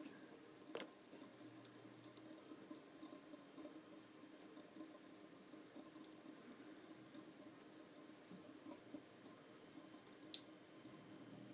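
Near silence: faint steady room hum with scattered small ticks and clicks, the clearest about a second in.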